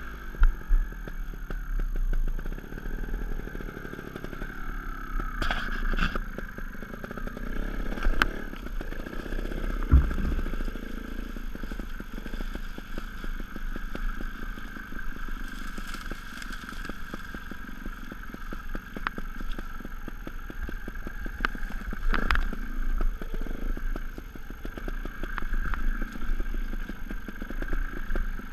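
Sherco 290 ST single-cylinder two-stroke trials motorcycle engine running at low revs, the throttle opened and closed so the pitch rises and falls, with occasional sharp knocks and clatter.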